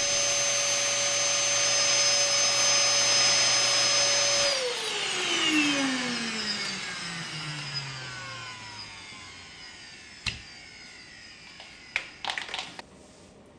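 An electric motor, like an appliance's, running steadily at a high even pitch, then switched off about four and a half seconds in and winding down with a falling whine over several seconds. A sharp knock follows, then a short clatter of clicks near the end.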